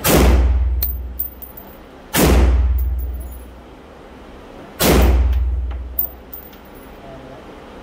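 AR-15-style rifle fired three times, about two and a half seconds apart, each shot a heavy boom with a long echoing tail in an indoor range. Light clinks sound between the shots.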